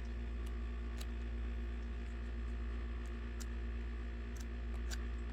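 A steady low hum with a few faint scattered clicks and ticks of photocards and paper being handled.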